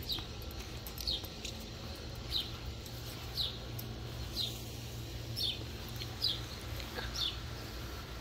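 A bird repeating a short, high, downward-sliding chirp about once a second, over a steady low hum.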